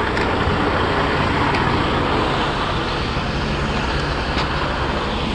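Semi-truck diesel engine idling steadily, with a constant noisy hiss over it and a few faint clicks.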